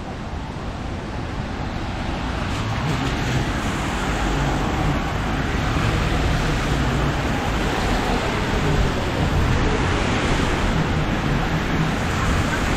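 Rainy city street ambience: a steady hiss of traffic and tyres on wet road with rain, with a low rumble of vehicles underneath, growing louder over the first few seconds.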